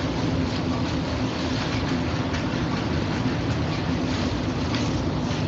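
Steady hiss with a low hum underneath, the background noise of an open voice-chat microphone line between spoken phrases.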